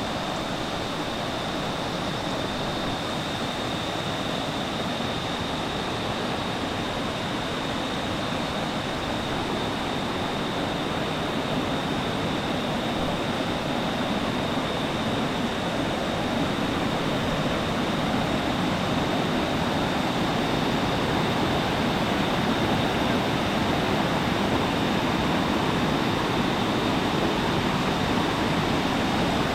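Rushing water from a jungle waterfall or stream, a steady roar of noise that grows louder in the second half, with a thin, steady high-pitched tone above it.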